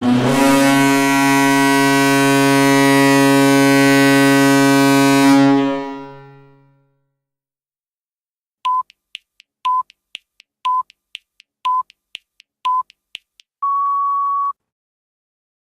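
An NHL arena goal horn, a deep air horn sounding several tones at once, blows steadily for about five seconds and then fades out. After a pause come five short electronic beeps about a second apart and then one longer beep: a countdown timer running out.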